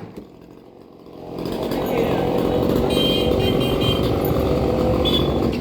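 Chainsaw running steadily, coming in about a second and a half in after a brief lull.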